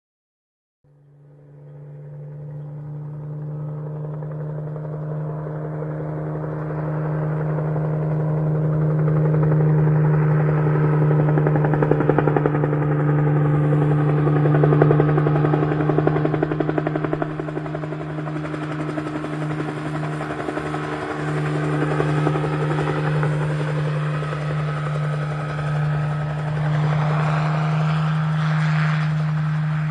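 Helicopter running: a steady low drone with rapid rotor chop that starts about a second in and grows louder over roughly the first ten seconds, then holds, with a short rising whine near the end.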